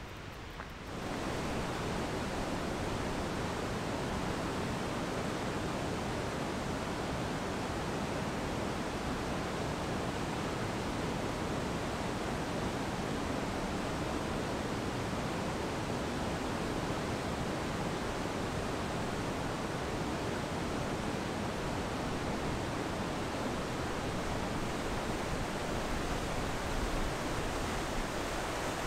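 Steady rushing of a fast mountain stream over rocks, an even, unbroken water noise that swells in about a second in and holds level.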